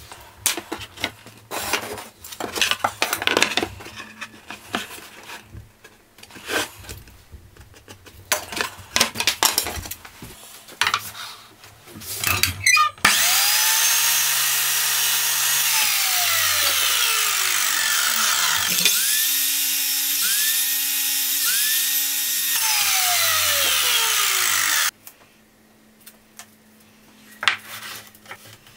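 Compact mitre saw cutting pine frame trim, its motor whining up to speed and winding down in falling glides, several times over; this is the loudest part and stops abruptly about 25 seconds in. Before it come light knocks and scrapes of the wooden trim being handled and pencil-marked.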